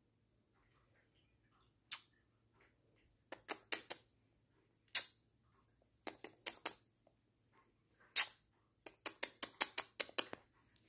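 Kitten tearing at the shredded edge of a cardboard box. Sharp cardboard crackles and rips come singly and in quick runs, and the longest run is near the end.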